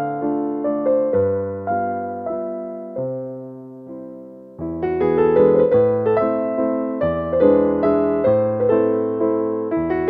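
Background music played on piano, with notes struck and left to ring. The playing thins and fades about three seconds in, then picks up again fuller a little past four and a half seconds.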